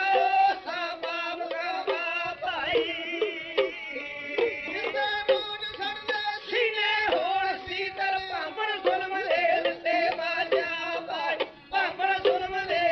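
Traditional Punjabi folk music: a sliding, ornamented melody over a steady drone, with frequent quick drum strokes.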